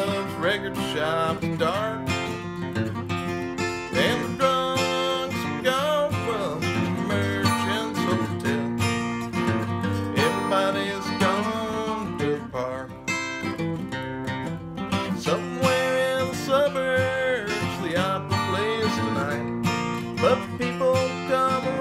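Acoustic guitar played solo, picking and strumming a folk tune without words.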